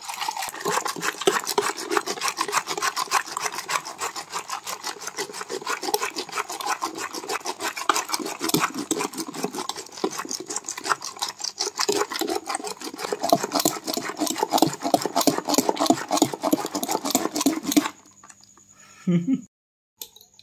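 Metal hand whisk spun fast in a stainless steel pot of curd and water, churning it into lassi: a rapid, even clatter and scrape of the whisk against the pot with liquid sloshing. It stops near the end.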